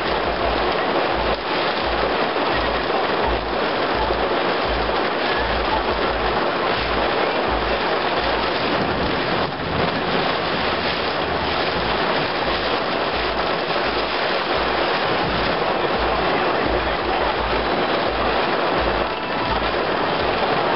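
Heavy, steady downpour of rain hissing on pavement, with gusts of wind rumbling on the microphone in short irregular bursts.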